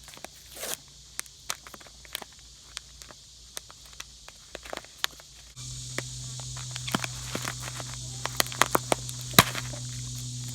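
Irregular footsteps crunching on dry ground. About halfway through, a steady low hum starts abruptly and runs under the steps.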